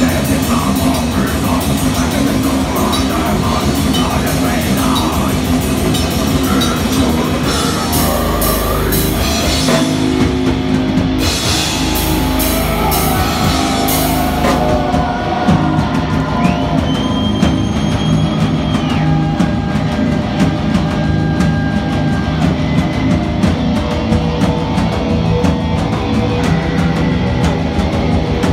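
Heavy metal band playing live: distorted electric guitar over a drum kit struck in a dense, fast rhythm, with cymbal washes through the middle stretch.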